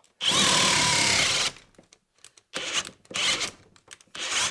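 Kobalt cordless hammer drill in drill mode boring a 1.5-inch spiral bit into a wooden post. It runs for just over a second with its pitch sagging a little under load, stops, then spins in four short bursts.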